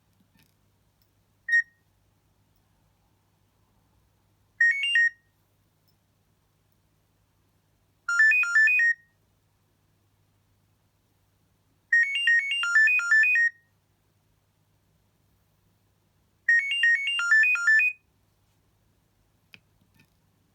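Nokia 6230i mobile phone playing a ringtone through its small speaker. A single high beep is followed by phrases of quick electronic notes. The phrases are separated by pauses of a few seconds and grow longer each time.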